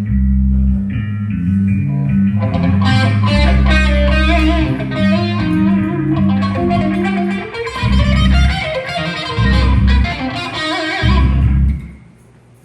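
Heavy metal band playing a riff at sound check: distorted electric guitar over heavy bass guitar. In the second half it breaks into stop-start chugging hits, then cuts off shortly before the end.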